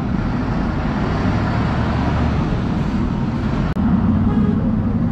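Steady street din of a busy roadside bazaar, mostly the rumble of vehicle traffic. It breaks off for an instant about three and a half seconds in and carries straight on.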